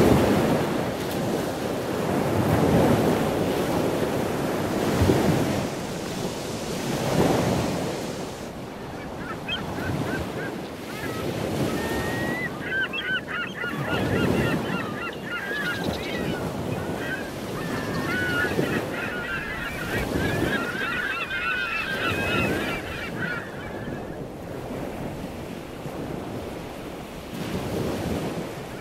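Ocean surf breaking and rushing up the beach, with wind buffeting the microphone. About eight seconds in it gives way to a long stretch of many short, wavering bird calls over continuing wind gusts, which fade out a few seconds before the end.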